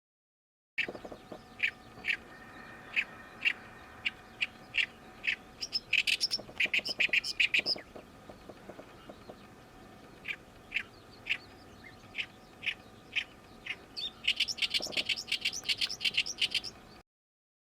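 Oriental reed warbler singing its grating 'gyo-gyo-shi' song: spaced single notes that twice build into fast chattering runs.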